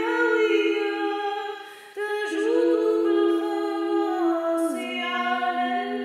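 Unaccompanied Byzantine chant in Arabic: a woman chants a troparion in the third tone over a held ison drone from a second voice. The melody pauses briefly about two seconds in, and the drone steps down to a lower note near the end.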